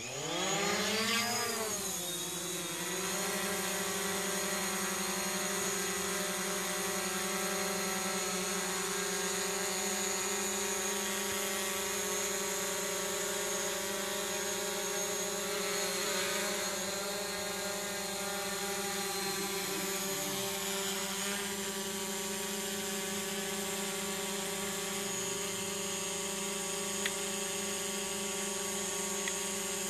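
Camera drone's propellers spinning up for takeoff, the whine rising in pitch over the first couple of seconds, then settling into a steady buzzing hum as it flies.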